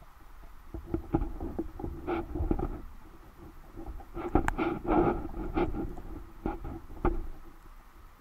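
Knocks, taps and scraping against an underwater action camera's waterproof housing, with a low rumble, heard through the housing. They come in two clusters, then two single knocks near the end.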